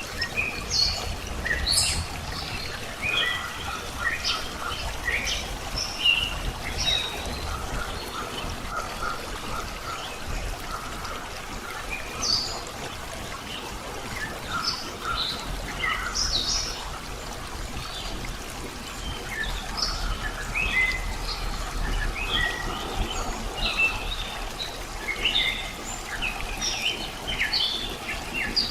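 Several birds chirping and calling in quick, overlapping short notes, over a steady trickle of running water.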